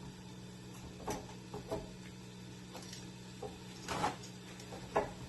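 Light clicks and knocks of kitchen items being handled, about five spread over a few seconds, over a steady low hum.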